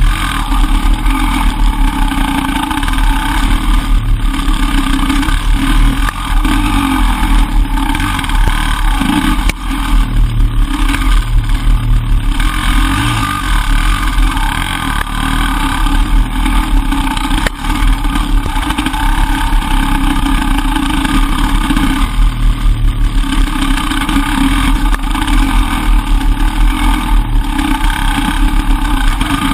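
Enduro motorcycle engine running hard along a trail, revving up and easing off again and again as the throttle works over rough ground.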